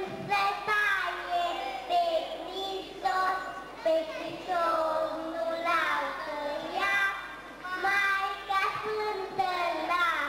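A group of young children singing a song together, moving through held notes in a steady melody.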